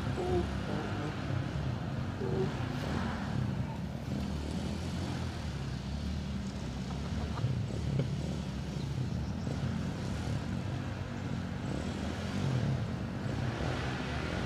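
Dirt bike engine running, its pitch rising and falling as the throttle comes on and off.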